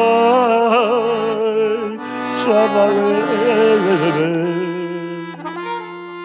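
Instrumental passage of a Romani song: a lead melody with quick trills and bends over held lower notes, settling onto a long held note near the end.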